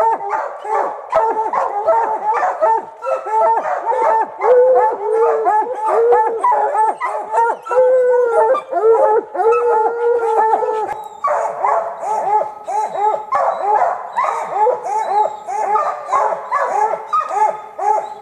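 A pack of hunting hounds barking and baying at a tree, several voices overlapping without a break: the tree bark of hounds holding a black bear up a tree.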